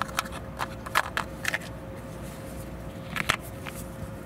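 Clear plastic blister pack crackling and clicking as a small LED wedge bulb is pushed out of it and the pack is handled. There are a few short sharp clicks, the loudest near the end, over a faint steady hum.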